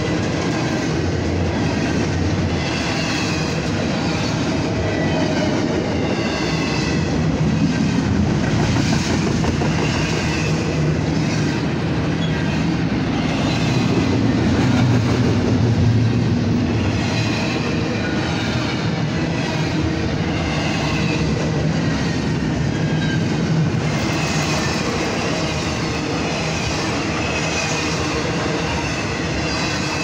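Norfolk Southern intermodal freight train's double-stack container cars and trailer flatcars rolling past close by: a steady rumble of steel wheels on rail with rhythmic clickety-clack as the wheels cross rail joints.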